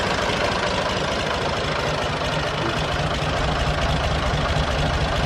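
Ford 4630 tractor's diesel engine running steadily with a knocking clatter, its low rumble growing a little stronger about halfway through.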